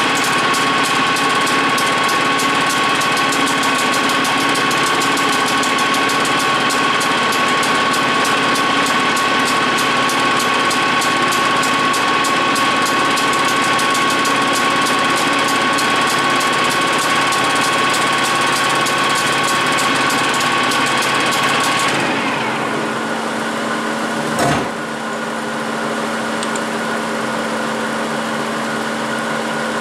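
Capstan lathe running in gear, a steady whine with a fast fine clatter from the headstock gearing. About three-quarters through, the whine falls away as the spindle slows, a single knock follows, and a quieter steady low hum carries on.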